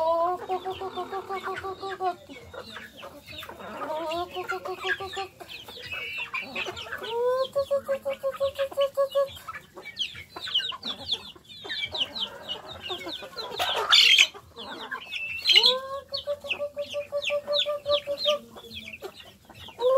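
A flock of chickens clucking, with four long drawn-out crows from roosters at different pitches. A short loud burst of noise comes about two-thirds of the way through.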